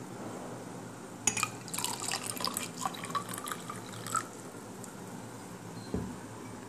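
Hot water poured from a small glass into a tall drinking glass of water, splashing and trickling for about three seconds from about a second in; a light knock near the end.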